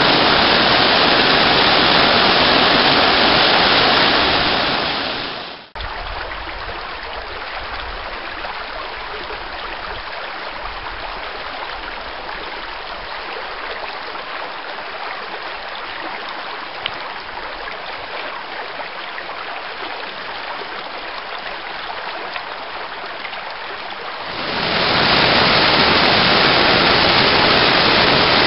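Waterfall pouring into a rock pool, a steady loud rush of falling water. About five seconds in it fades and cuts to a shallow creek running over rocks, a quieter, thinner rush. Near the end the full waterfall rush fades back in.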